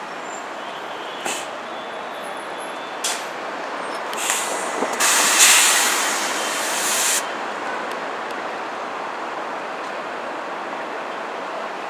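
Air brakes of an articulated New York City bus hissing: two short hisses, then a loud release lasting about two seconds near the middle, over steady street traffic noise.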